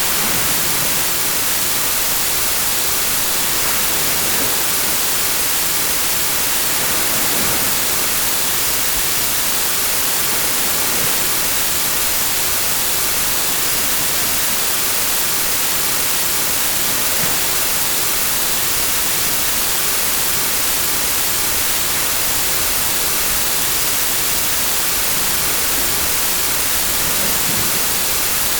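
Steady, unchanging hiss like static or white noise, strongest in the high range.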